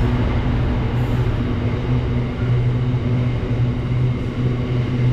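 Class 66 diesel-electric freight locomotive's two-stroke V12 engine running steadily, a constant low drone with no change in pitch.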